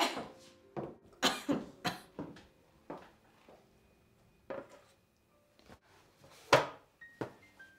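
A run of sharp knocks and clatters, some with a short metallic ring, as a metal roasting pan and wire rack holding a burnt roast chicken are handled and set down on a tiled counter. One knock near the end is louder than the rest.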